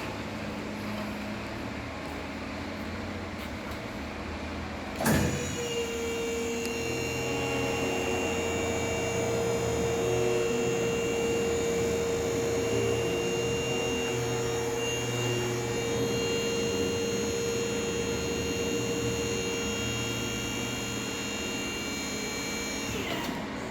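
Electric-hydraulic pump of a trailer's lift deck switching on with a click about five seconds in and running with a steady whine. Near the end it winds down, falling in pitch.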